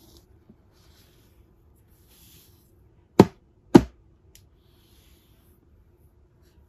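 Two sharp knocks about half a second apart, over a faint steady hum.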